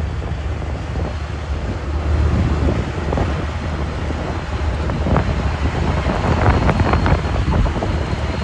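Wind buffeting the microphone over the steady low rumble of a heavy engine, with scattered knocks and rattles in the second half.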